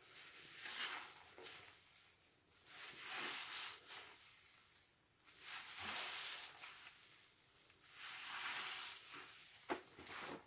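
A sponge soaked in washing machine liquid being squeezed, with wet squelching and fizzing of the suds. There are four squeezes about every two to three seconds, and a short sharp click near the end.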